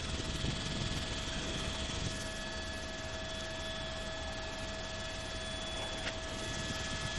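Steady engine and rotor noise inside a news helicopter's cabin, with a constant whine of several high tones over an even rushing noise.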